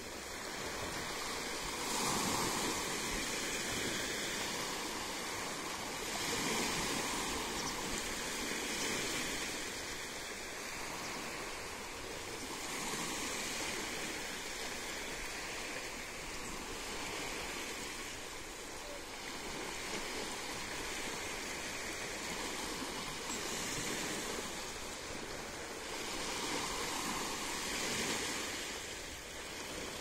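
Small sea waves washing over a flat rocky shore. The surf swells and eases every few seconds.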